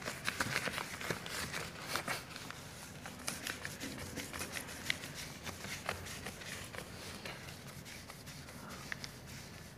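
Whiteboard eraser being rubbed across a whiteboard in quick scrubbing strokes: a rapid, scratchy swishing that is busiest in the first few seconds and thins out toward the end.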